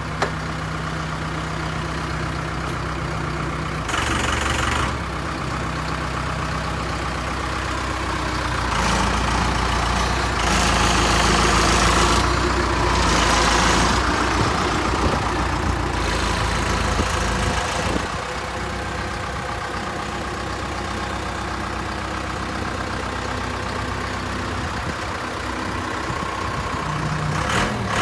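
1995 Case 590 Turbo loader backhoe's turbocharged four-cylinder diesel engine idling, with a brief louder moment about four seconds in. It then runs louder for several seconds around the middle before dropping back to a steady idle.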